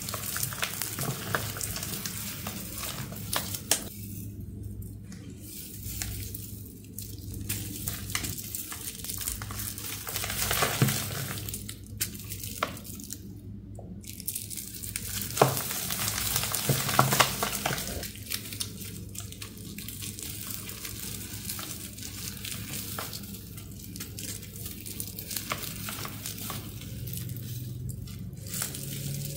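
Bare hands crushing and sifting a crumbly, powdery block mixed with confetti and glitter: a gritty crunching and rustling hiss with many small crackles, easing off in a few short lulls.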